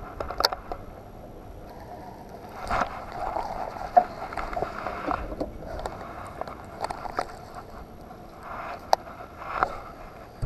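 Scattered light clicks and knocks from a baitcasting rod and reel being handled in a small boat.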